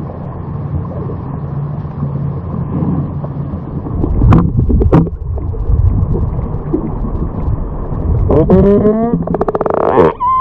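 Underwater sound heard through a camera housing: a steady low hum, as from the tour boat's outboard motor, with a wash of water noise, and two sharp knocks about four and five seconds in. Near the end, killer whales call: pitched, harmonic calls that rise and fall.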